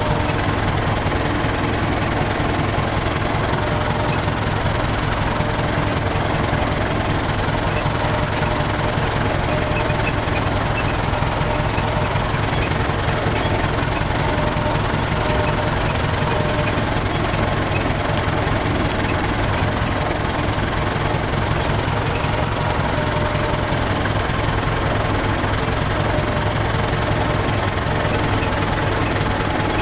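Tractor engine running steadily at tickover while the tractor drives along in second gear, heard from inside the cab.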